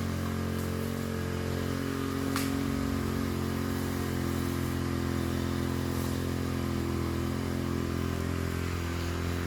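Brushcutter engine running steadily at a constant speed, an even unchanging drone.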